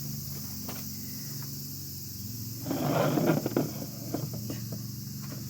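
Metal parts of a portable fire stand being handled during assembly: scattered light clicks, and a louder clatter and scrape about three seconds in, over a steady high hiss.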